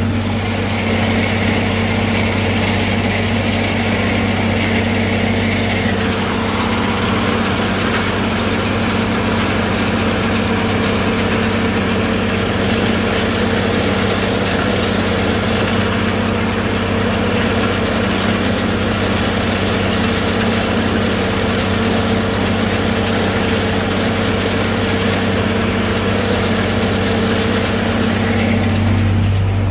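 John Deere tractor's diesel engine running steadily under load, driving a PTO baler as it picks up a windrow of canary grass. A higher band of sound in the mix drops away about six seconds in.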